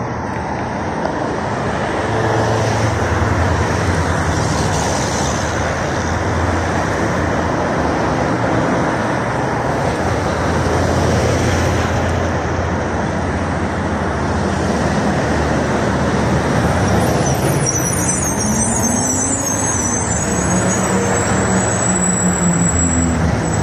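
Steady city road traffic, cars passing continuously. Over the last few seconds a LiAZ 5292.67 city bus, running on compressed natural gas, draws in with its engine note shifting in pitch, and a high brake squeal is heard.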